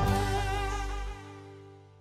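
Instrumental background music ending on a long held chord that fades out. The lowest notes drop away a little over a second in.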